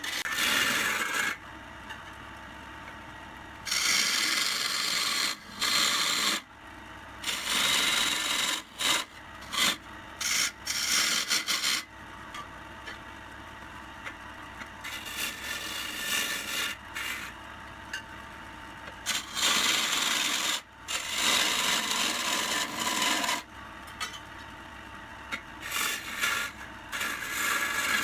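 A tool scraping against wood spinning on a woodturning lathe, in repeated cuts lasting from under a second to several seconds. Between the cuts a quieter steady running sound is left.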